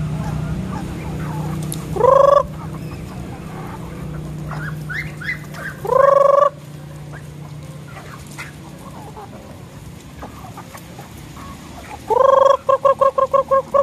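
Native chickens calling while feeding: two short, loud calls about two and six seconds in, with softer high calls between them. Near the end comes a longer call that breaks into a rapid run of short calls, about seven a second.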